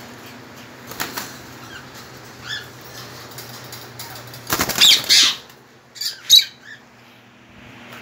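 Caged parrots flapping their wings in a few short flurries, the loudest lasting under a second just past halfway and a shorter one soon after.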